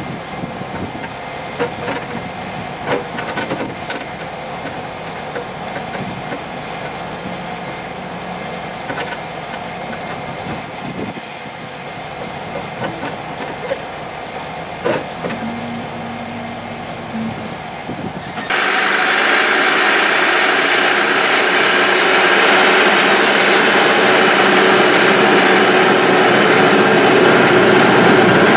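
Caterpillar D7 crawler bulldozer working, its diesel engine running under load with the crawler tracks clanking irregularly. About two-thirds of the way through, the sound abruptly becomes louder and harsher.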